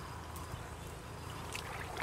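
Hands sloshing in shallow, muddy ditch water while groping for fish, with a couple of short splashes, over a steady low rumble.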